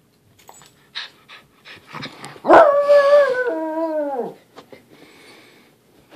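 A dog gives one drawn-out, high howling whine of about two seconds, starting a little past halfway through and sliding down in pitch at the end. Before it come a few light scuffles and clicks as the dogs jump about.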